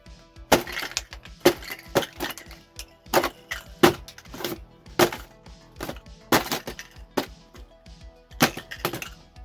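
Sharp, irregular clicks and snaps of an action-figure box's plastic and cardboard packaging being opened and handled, a couple per second, over quiet background music.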